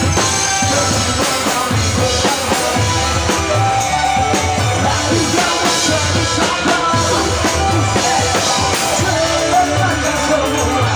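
Live band music with a drum kit playing a steady beat and singing over it.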